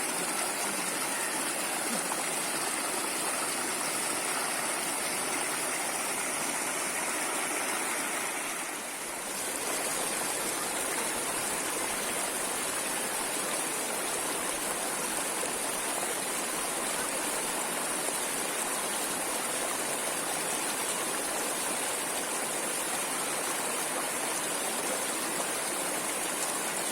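Water flowing steadily in a stream, an even rushing noise that briefly dips about nine seconds in.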